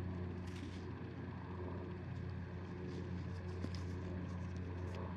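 Faint crackles, clicks and scrapes of dirt being worked by hand around a freshly found button, over a steady low hum.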